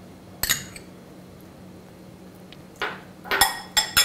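A steel spoon clinking against glass bowls: one sharp clink about half a second in, then a quick cluster of clinks with a short glassy ring near the end.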